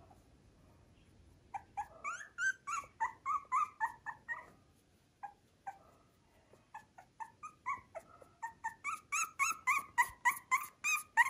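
Very young Miniature Schnauzer puppy squeaking and whimpering in short high-pitched cries, several a second. The cries pause briefly around the middle, then come faster and louder toward the end.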